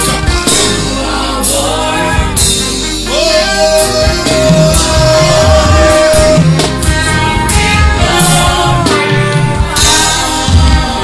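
Live gospel praise music: a male lead singer with backing vocalists over a band with drums. About three seconds in, one sung note is held for about three seconds.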